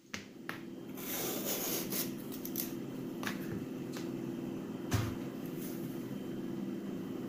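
Hand vegetable peeler scraping strips of skin off an eggplant in a series of short strokes, with a knock about five seconds in. A steady low hum runs underneath.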